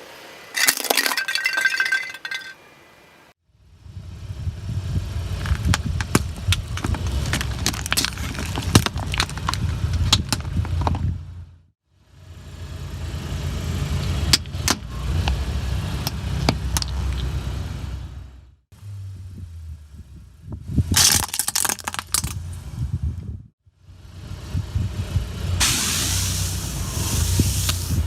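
A car rolling slowly over objects in several short takes: a low engine and tyre rumble, with many sharp cracks and crunches as things break under the wheels.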